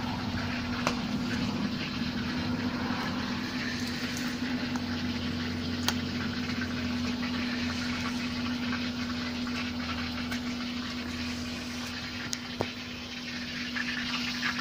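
A steady mechanical hum, like a motor running, holding one even pitch, with faint rustling and a few small clicks of plant leaves being handled.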